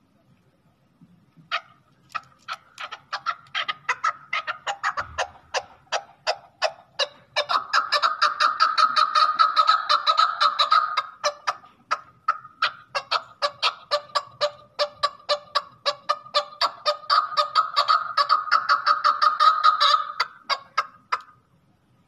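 Male chukar partridge calling: a long run of rapid, repeated chuck notes that begins about one and a half seconds in and speeds up. It swells into two loud, dense stretches, one in the middle and one near the end, and stops about a second before the end.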